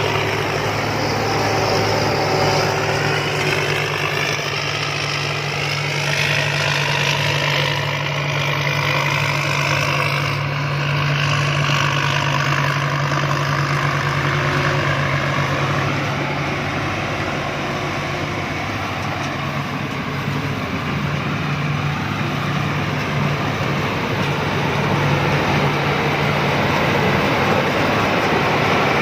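Rice combine harvester's diesel engine running steadily, with a higher whine that slides up and down in pitch over the first half or so.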